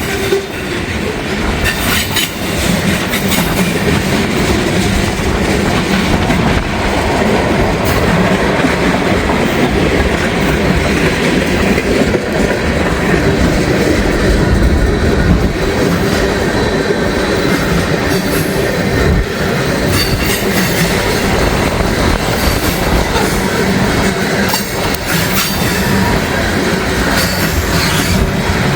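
Norfolk Southern freight train of loaded tank cars rolling steadily past, wheels clicking over the rail joints with some wheel squeal, under strong wind buffeting the microphone.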